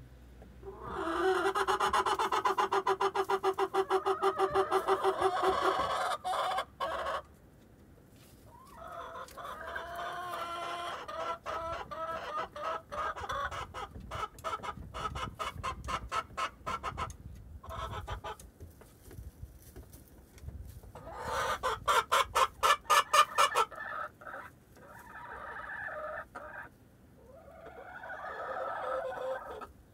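Hens clucking and cackling in bouts of rapid, repeated calls. The loudest bout comes about two-thirds of the way in, with shorter calls after it.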